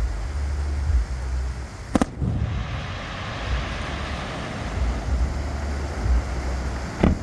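Aerial fireworks shells bursting: a sharp bang about two seconds in, followed by a few seconds of crackling, and another bang near the end, over a steady low rumble of wind on the microphone.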